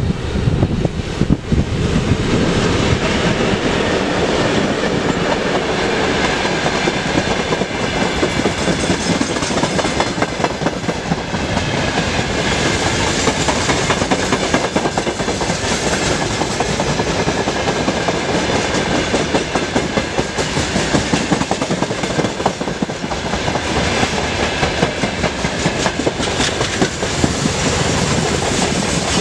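A long freight train of open-top wagons rolling past at close range. The wheels give a steady rattle and clatter over the rails.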